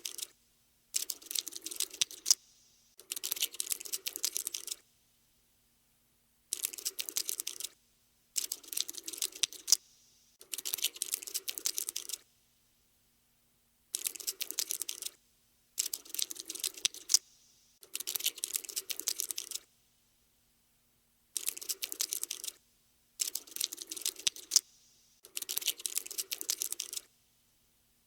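Scuttling sound effect for a crawling cockroach: bursts of rapid clicking and scratching, each one to two seconds long. The bursts come in groups of three with short pauses between the groups, repeating like a loop.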